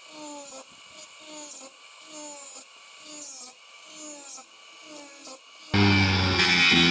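Electronic backing music with a repeating, falling synth-bass figure. Shortly before the end, a cordless angle grinder comes in loudly, cutting through the copper windings of a ceiling-fan motor stator.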